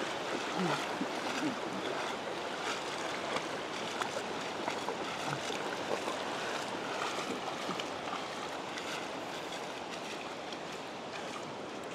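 Feet wading through ankle-deep shallow seawater: a steady sloshing and splashing of water around the legs, with small splashes scattered through it.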